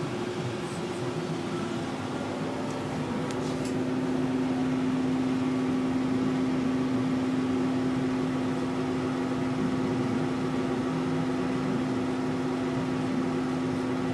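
Steady hum of a furnace running, like a fan, with a steady tone that drops slightly lower about two and a half seconds in. A few faint ticks, but no loud bottle-rocket bangs.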